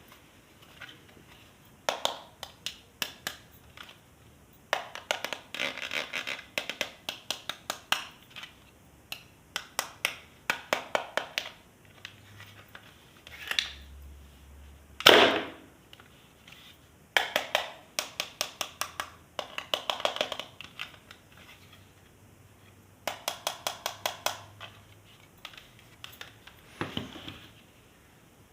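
Hands handling plastic toys or packaging: repeated bursts of rapid clicking and scratching, each a second or few long, with one louder knock about halfway through.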